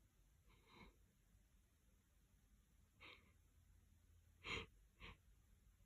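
A person's short, faint catching breaths, a few of them, the two clearest close together near the end: the build-up of a sneeze that is slow to come.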